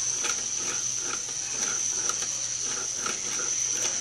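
Small plastic K'Nex motor running with a steady high whine, turning a taped rod and paper roller, with a regular plastic click about twice a second from the turning gear train.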